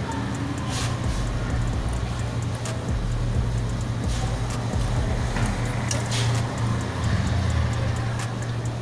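Steady low hum of a running motor, with a few short light clicks.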